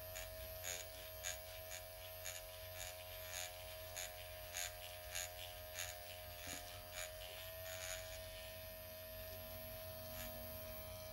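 Dr. Pen electric microneedling pen running against the skin of the face: a steady motor hum, with faint ticks about twice a second that stop about eight seconds in.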